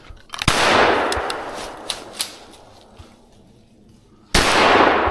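Two shotgun shots about four seconds apart, each a sharp crack followed by a long echo that fades away.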